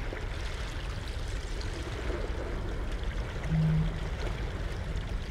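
Steady running water, like a stream, with a brief low hum about three and a half seconds in.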